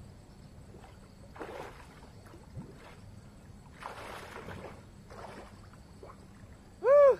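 Water sloshing in a few soft swishes as a cast net is worked in shallow canal water. Near the end comes one short, loud, high call that rises and falls in pitch.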